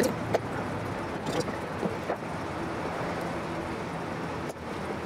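A few small metal clicks as needle-nose pliers work the small hardware on an elevator trim tab servo linkage, heard over a steady background noise.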